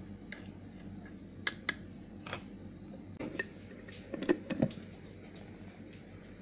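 Wooden chopsticks clicking against the inside of a glass jar while a coarse lemongrass-and-lemon mix is stirred, then a burst of louder knocks and clicks as a plastic clip-lock lid is fitted onto the jar.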